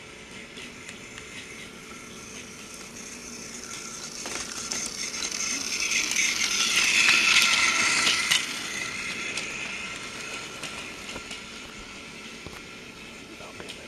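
Battery-powered toy Thomas the Tank Engine running on plastic track: a small electric motor's steady whine with clicking of the wheels over the track, growing louder as it comes close about seven seconds in, then fading as it moves away.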